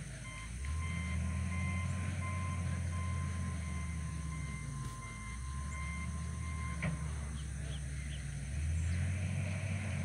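Distant heavy machine's engine running steadily, with its reverse alarm beeping over and over for about seven seconds, then stopping.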